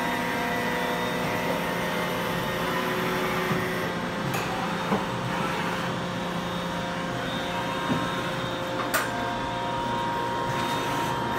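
Sharp SV-3220 vertical machining center running a short program: a steady machine hum with several held tones, and a few sharp clicks, one about four seconds in and another near nine seconds.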